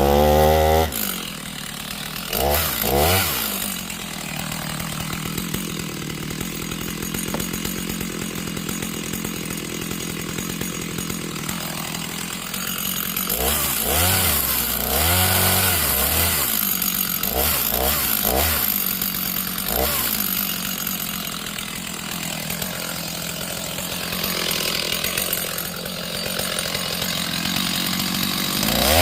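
Two-stroke chainsaw running at cutting speed through a pine trunk, its engine pitch rising and falling several times as the saw is worked in the cut.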